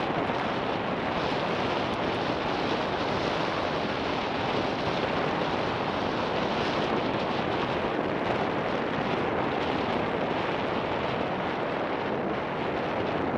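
Steady wind rushing over the microphone of a helmet-mounted camera on a moving mountain bike, mixed with the rolling of its tyres on a gravel track.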